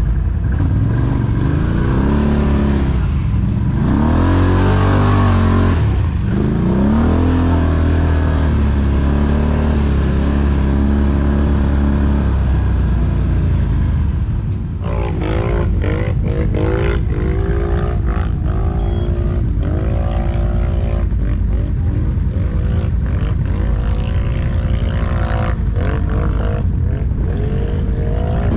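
Can-Am ATV engine revving up and down as it rides a rough dirt trail. About halfway through the sound changes to another stretch of riding, with the engine revving up again and again and short knocks from the bumps.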